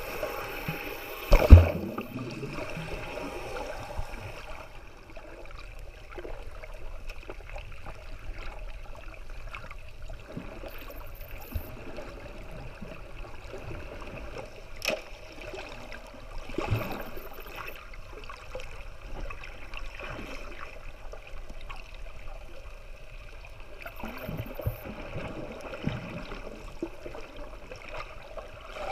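Underwater water noise around a submerged camera: a steady watery hiss with gurgling and scattered small clicks, and one loud knock about a second and a half in.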